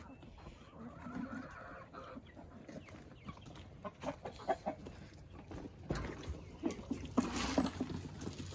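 Chickens clucking, with short calls that grow busier and louder in the second half.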